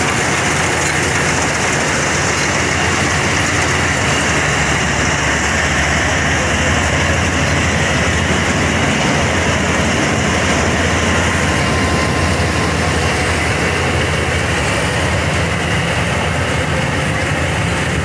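National 'Premium' combine harvester running steadily under load while harvesting mung beans: the engine's drone mixed with the noise of its cutting and threshing machinery, with no change in pace.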